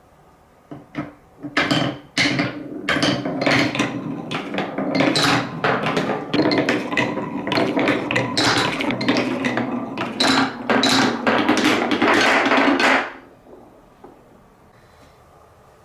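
Colourful balls rolling down a plastic TrixTrack marble run's wave-slope stair sections, a few separate clicks at first, then a dense rapid clatter of many balls hitting the steps, which stops abruptly about three seconds before the end.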